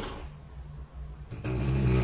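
A person snoring: a short breathy snort at the start, then, about a second and a half in, a louder, low-pitched snore.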